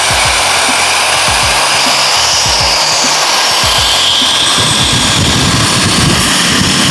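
AGARO Imperial 6-in-1 hair styler running with its curling barrel attachment on full heat, giving a loud, steady rush of blown air.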